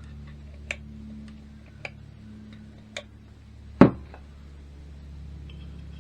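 Light metallic clicks, about one a second, from small engine parts and tools being handled during motorcycle engine reassembly, then one louder sharp knock a little before the end, over a steady low hum.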